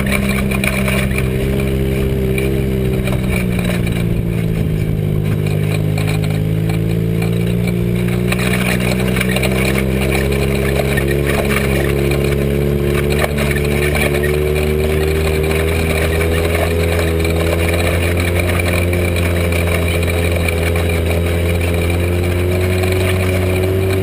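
Joyner dune buggy's engine, breathing through a Weber 45 DCOE carburettor and a big-tube header, running steadily while driving across sand. Its pitch dips a few seconds in, then climbs back and holds.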